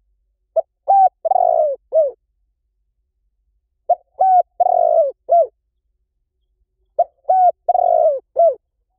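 Spotted dove cooing: its phrase repeats three times, about three seconds apart. Each phrase is a short note, a double note, a long quavering coo, and a final short coo.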